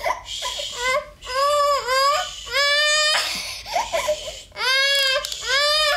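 A toddler girl of about three crying hard: a run of four or five long, high-pitched wails with short gasping breaths between them.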